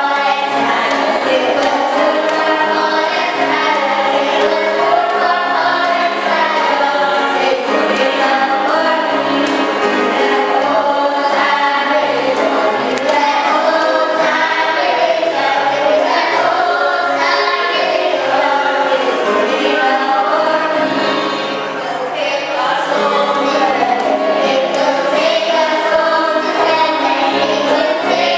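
A choir singing Christian gospel music, with held low accompanying notes that change in steps beneath the voices.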